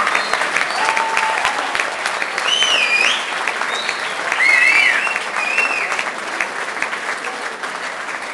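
Audience applause, dense clapping throughout. Between about two and six seconds in, a few high-pitched cheers rise and fall above the clapping, and the applause eases off slightly toward the end.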